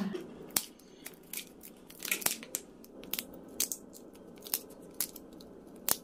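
Kitchen scissors snipping through the antennae and shell of large tiger prawns: a dozen or so sharp, irregular snips.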